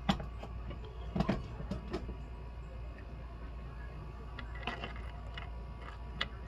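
A few light, separate clicks and taps of small metal tools handled on a jeweler's workbench, over a steady low hum.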